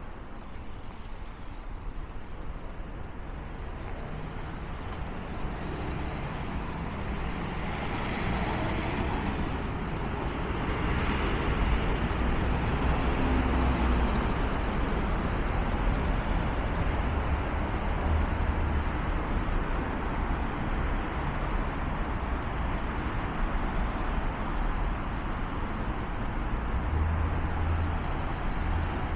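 Road traffic on a city street: a steady mix of engine rumble and tyre noise, swelling over the first ten seconds or so and then holding steady.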